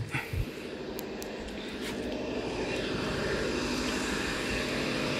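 A sharp click at the start, the pickup's hood release being pulled, then a steady engine drone with a low hum that swells over the first few seconds and then holds.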